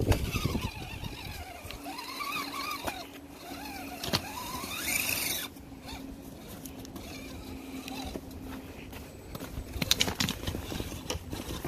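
Redcat Gen7 RC rock crawler's electric motor and gearbox whining, rising and falling in pitch with the throttle as it crawls over rock and snow, with a steady low hum under it. A cluster of sharp clicks and crunches comes near the end.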